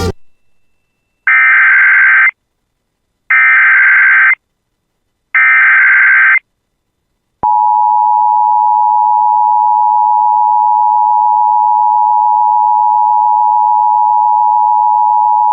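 Emergency Alert System signal: after a brief click, three one-second bursts of SAME digital header data, a buzzing warble about a second apart. About seven seconds in, the steady two-tone EAS attention signal begins.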